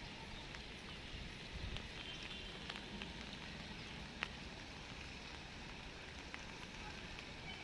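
Steady rain falling, with scattered drops ticking sharply on nearby surfaces; one tick about four seconds in stands out.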